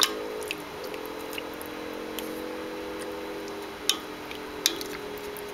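Wooden chopsticks stirring pork belly and fish in braising liquid in a stainless-steel pot, with a few sharp clicks as they knock the pot, over a steady hum.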